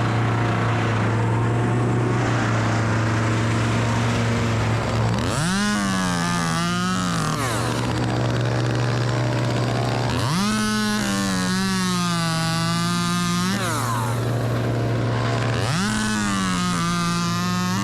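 An engine runs at a steady low pitch and three times rises sharply to a much higher pitch, holding there for two to four seconds each time before dropping back.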